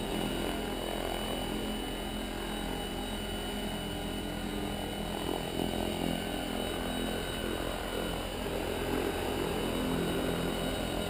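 Electric 700-size RC helicopter (Agile 7.2 with a Pyro 750 brushless motor on 14S) hovering: a steady buzz of the rotor blades and motor, with a thin high whine held on one pitch.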